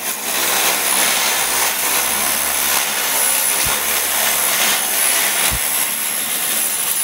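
Corded drill driving Matco drill-operated snips, shearing across a 29-gauge ribbed metal roofing panel: a steady high whine over a dense metallic rasp, with two brief low knocks partway through.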